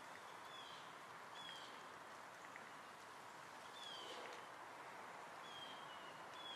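Faint outdoor ambience: a bird gives several short, high whistled calls, each sliding slightly downward, over a steady soft hiss.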